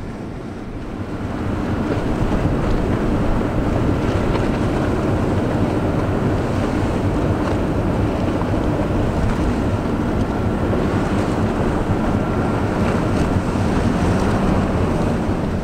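Low, steady drone of a ship's engine under the rush of water, with wind buffeting the microphone. It grows louder about a second and a half in and then holds steady.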